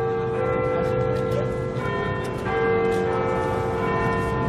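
Bells chiming a slow sequence of notes, each note ringing on as the next one strikes, over a low background rumble.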